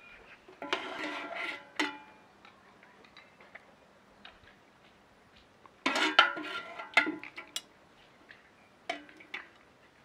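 Metal spoon and ladle clinking and scraping against a large aluminium cooking pot while scooping out sauce, in two bouts of ringing clatter, one about a second in and one about six seconds in, with a single clink near nine seconds.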